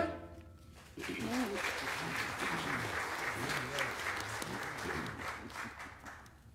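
Congregation applauding, starting about a second in and fading away near the end, with a few voices mixed in.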